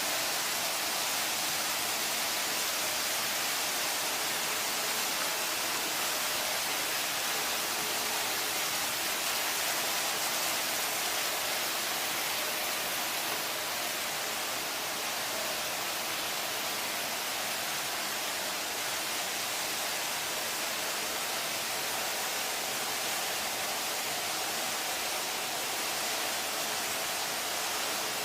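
Steady, even hiss with no distinct events, strongest in the upper range.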